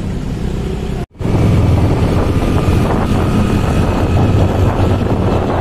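Motorcycle engine running under way, with wind buffeting the microphone. The sound drops out briefly about a second in and comes back louder.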